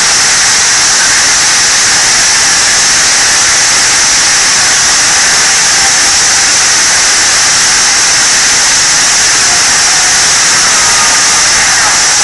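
Loud, steady hissing noise like static, with no pitch or rhythm, strongest in the high range.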